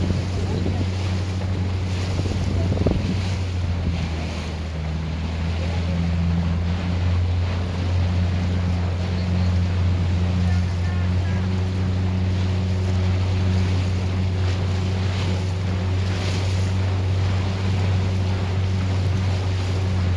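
Small boat's motor running steadily underway, a continuous low drone, over the rush of water along the hull and wind on the microphone.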